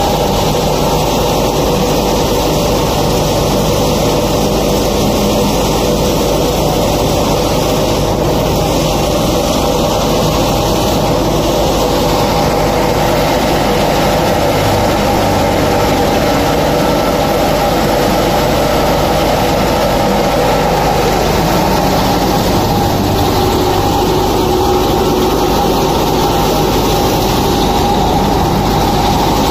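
Tractor-driven (PTO) threshing machine running steadily: a loud, unbroken mechanical drone of the tractor's diesel engine and the thresher's spinning drum.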